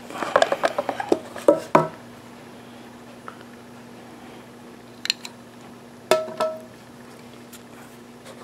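Metal lightsaber hilt handled and lifted out of its foam-lined case: a quick run of clicks and knocks in the first two seconds, then a few sharp metallic clinks about five and six seconds in, one ringing briefly. A faint steady hum runs underneath.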